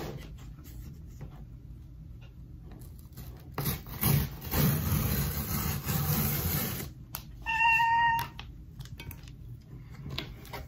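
Cardboard tear strip being ripped along the top of a shipping box: a rough tearing noise a few seconds long. Near the end comes a short high squeal of under a second.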